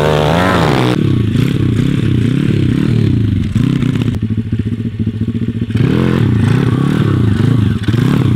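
MRF 140 pit bike's single-cylinder four-stroke engine revving up and down over and over as the throttle is worked to hold a wheelie. In the middle it falls to a low, rattly putter for about two seconds, then revs again.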